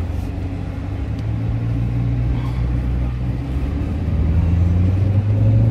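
Chevrolet Corvette's V8 engine running low and steady at low speed, heard from inside the cabin. Its drone rises slightly in pitch about a second in and grows gradually louder toward the end.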